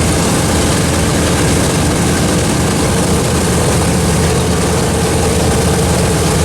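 Boeing B-17 bomber's Wright R-1820 Cyclone nine-cylinder radial piston engines running steadily with propellers turning, just after start-up.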